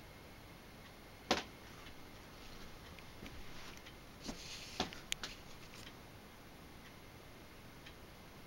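Handheld camera handling in a quiet room: a sharp click about a second in, then a soft rustle with a small cluster of clicks around four to five seconds in.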